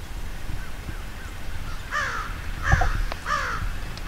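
A crow cawing three times in quick succession from about two seconds in, after a few fainter calls. A low thump and a sharp click come between the caws.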